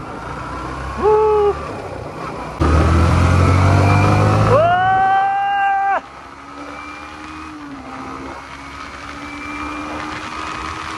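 Motorcycle running on the road with wind noise, and a vehicle horn sounding twice: a short beep about a second in and a longer blast just past the middle that cuts off suddenly. After the horn, the engine settles into a quieter steady drone.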